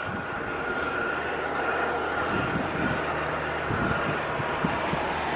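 Airbus A330neo jet airliner giving a steady high whine over a low rumble as a tug pushes it back.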